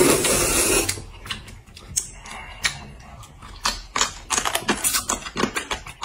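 Two people slurping noodles: a loud slurp at the start, then quick wet clicks and smacks of slurping and chewing, coming thicker in the last couple of seconds.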